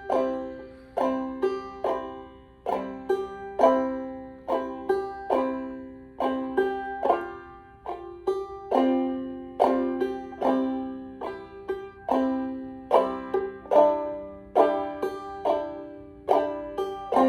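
Five-string banjo played clawhammer style: a steady, rhythmic bum-diddy pattern of struck strings and chords, the melody of a simple fiddle tune picked out with the strum.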